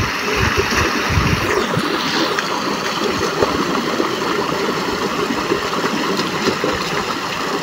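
Stream water pouring over a small concrete weir and rushing steadily. There are a few low thumps in the first second and a half.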